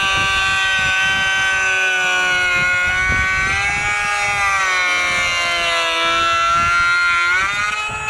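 Cordless handheld electric planer running at full speed with a steady, loud, high whine as it shaves a pass along a wooden board, its pitch dipping briefly near the end.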